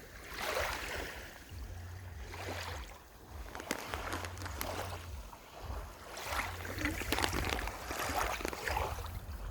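Water splashing and lapping in uneven surges, busiest in the last few seconds.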